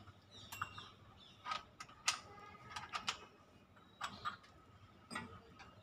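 Irregular metallic clicks and taps of a hand tool on a spray paint gun's air-hose fitting as it is tightened to stop a small air leak.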